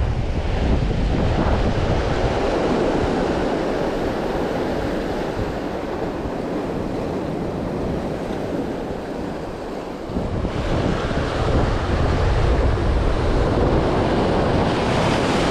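Rough surf breaking and washing ashore, with wind buffeting the microphone; the wash grows louder about ten seconds in.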